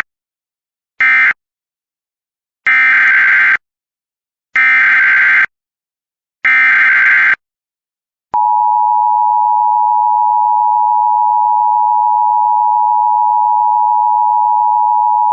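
Emergency Alert System tones. Two short screechy data bursts near the start close the previous alert, then three screechy SAME header bursts of about a second each encode the next alert. About 8 s in, the steady two-tone attention signal begins and holds, announcing that a new alert follows.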